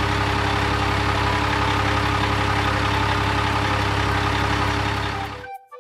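Heavy truck engine running steadily at an even pitch, then cutting off abruptly near the end.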